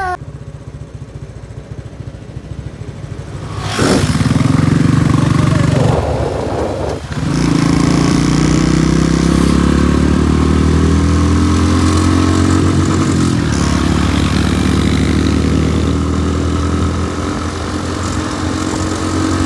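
Motorcycle engine pulling hard under acceleration: the engine gets suddenly louder about four seconds in, drops briefly around six to seven seconds as if shifting gear, then climbs steadily in pitch with another short dip partway through.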